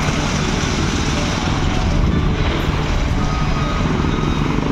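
Steady noise of road traffic, with wind buffeting the microphone.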